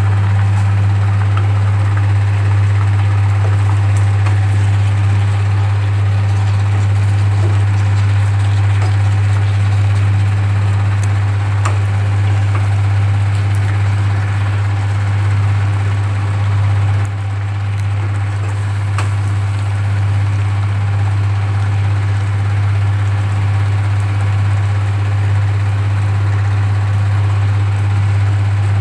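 A loud, steady low hum like a motor or fan running, with a few faint clicks of a spatula stirring potatoes in a metal saucepan.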